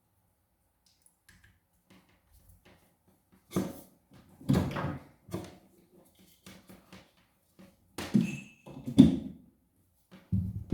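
A series of short knocks and thumps from handling hard objects on a surface, about seven in all, spread irregularly through the second two thirds.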